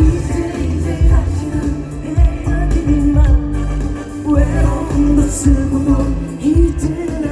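Live band playing pop music with a man singing the melody over a steady drum beat, heard through the concert's loudspeakers.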